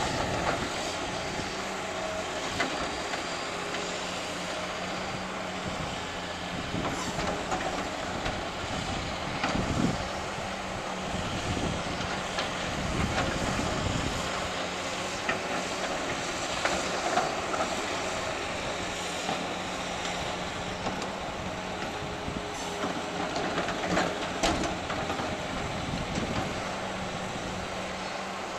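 Heavy demolition machinery running steadily with a constant engine hum, with occasional sharp knocks, typical of broken concrete being moved.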